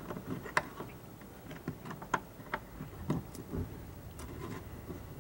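Small metal clicks and taps, irregular and spaced out, from fingers turning a nut and washer onto a seat-bracket bolt through the cab floor.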